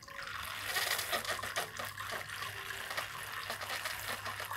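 TONE Touch 03 automatic pour-over brewer pouring water in thin streams from its showerhead onto the wet coffee bed in a Hario V60 paper filter: a steady splashing pour that starts suddenly at the beginning, one pulse of the machine's brew cycle.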